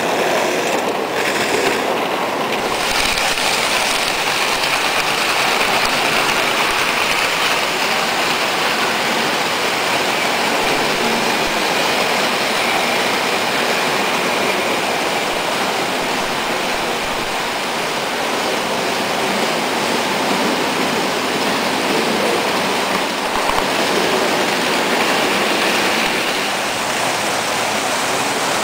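Vintage tinplate toy trains running on metal track, giving a steady, even noise.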